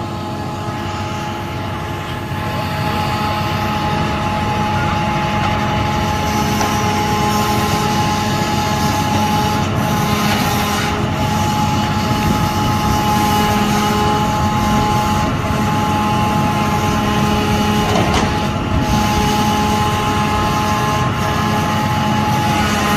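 Recycling collection truck running its hydraulic grab crane while it loads bags into the bed: a steady engine-and-hydraulic drone with a steady whine, getting louder a couple of seconds in.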